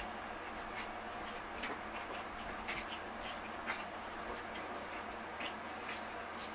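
Two Chihuahuas scuffling and wrestling on a fleece blanket: their paws scrabble and rustle on the fabric in short, scratchy bursts, several times, over a steady background hiss.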